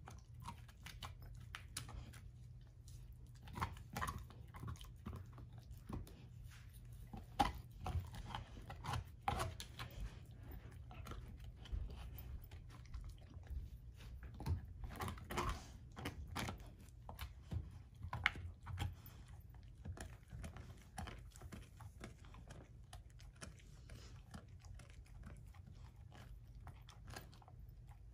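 German shorthaired pointer chewing an air-dried, hair-on whole pig foot: irregular gnawing with sharp crunches as her teeth work the bone and skin. The louder crunches come in the first two-thirds, then the chewing turns softer near the end.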